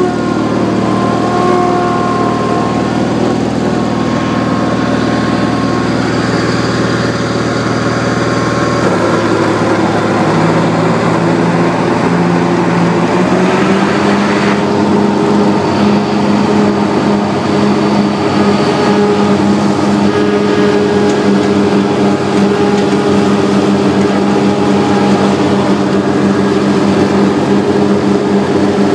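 Grasshopper 718K zero-turn mower running loud and steady while mowing. Its engine note shifts about a third of the way in and steps up slightly in pitch a few seconds later.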